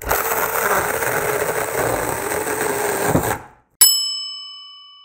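Mini 4-inch cordless electric chainsaw, run on a Makita-type 18V battery, cutting through a log of firewood: motor and chain running steadily under load, cut off abruptly about three and a half seconds in. A single bell-like ding follows and rings out slowly.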